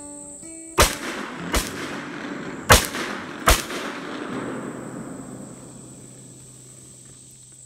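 Four shots from a .44-caliber Pietta replica 1858 Remington cap-and-ball black powder revolver, fired in quick succession under a second apart, the second quieter and the third loudest, each ringing out afterwards. A steady high insect chirr runs underneath.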